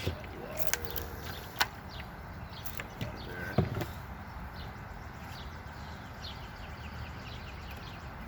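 Wooden beehive frames and hive parts being handled during an inspection: a few sharp knocks and clicks in the first four seconds, the loudest a thump about three and a half seconds in. Birds chirping with short, repeated falling notes in the background.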